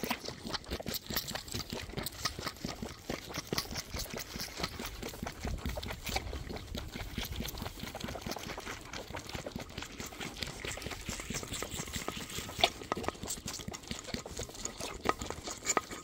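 Ewe lamb sucking milk from a plastic nursing bottle: continuous wet slurping and gurgling of milk and air through the nipple, with a few sharper clicks near the end.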